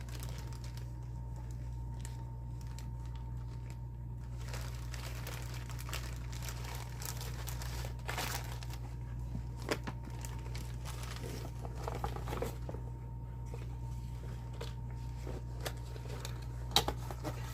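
Intermittent rustling and crinkling from things being handled, with a few sharper clicks, over a steady low hum.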